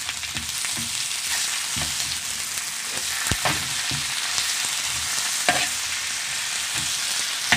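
Sliced onions, garlic and tomato sizzling in hot oil in a frying pan, stirred with a metal spatula that scrapes and knocks against the pan now and then.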